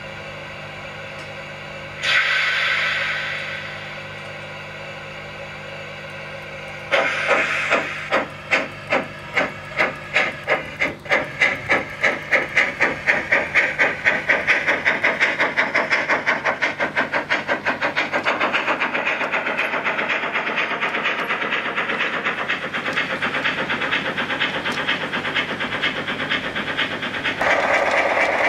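Garden-railway model steam locomotive setting off. A burst of steam hiss comes about two seconds in. About seven seconds in the chuffing starts, slow at first and quickening until the beats run together as the train gathers speed. A louder rushing noise joins near the end.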